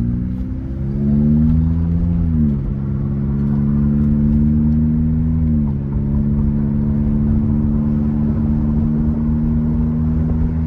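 Honda Accord's K24A4 2.4-litre four-cylinder, fitted with a short-ram intake and an HKS muffler, pulling away under throttle, heard from inside the cabin. The engine note climbs and then drops at two automatic-transmission upshifts, one about two and a half seconds in and one near the middle, and afterwards holds at a steady cruise.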